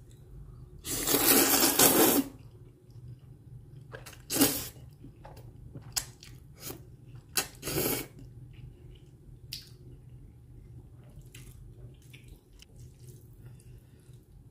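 A person slurping jjajang ramen noodles in black bean sauce: one long, loud slurp about a second in, then several shorter slurps and smacks, then quieter chewing.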